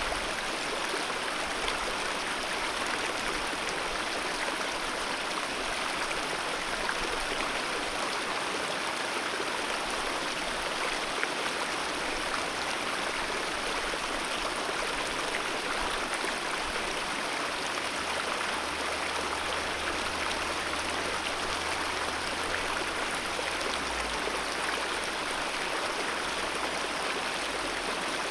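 Alpine mountain river flowing: a steady, even rush of water with no pauses or changes.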